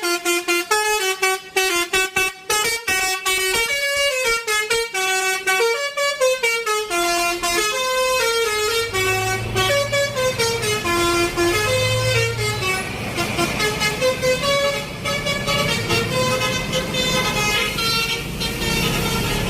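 Bus 'telolet' musical horn playing a tune, its notes stepping up and down one after another. About eight seconds in, a low rumble joins under the melody.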